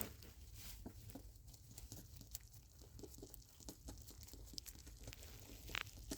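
Pet rabbit nibbling, with faint scattered crunches, tearing and rustling clicks.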